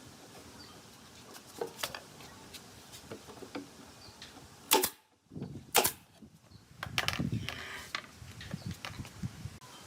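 Scattered knocks and clicks of wood and tools being handled, with two louder sharp knocks about a second apart in the middle, followed by a low rattling clatter.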